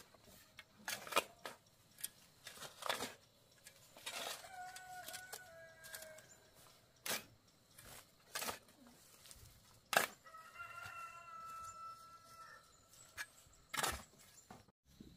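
A rooster crowing twice, each crow a long call of about two seconds: the first about four seconds in, the second about ten and a half seconds in. Short sharp knocks sound at irregular intervals throughout, the loudest just before the second crow and near the end.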